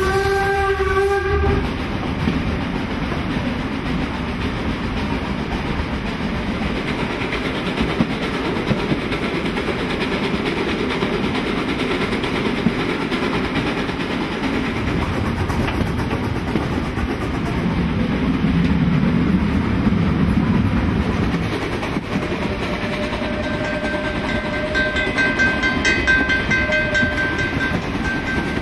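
Narrow-gauge steam locomotive whistle blowing once for about a second and a half, then the steady running noise of the steam train and its carriages on the rails. Near the end a higher steady tone sounds for several seconds.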